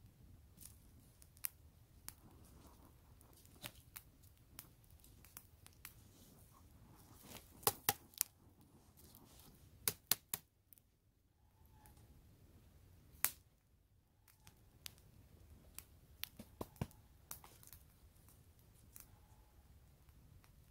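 Wood campfire crackling: irregular sharp pops and snaps over a faint steady hiss, with a few louder pops around 8 and 10 seconds in and one at about 13 seconds.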